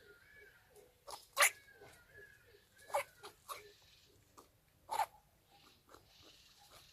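Rabbit sneezing several times: short, sharp puffs of air, the loudest about a second and a half in, with others near three seconds and five seconds in.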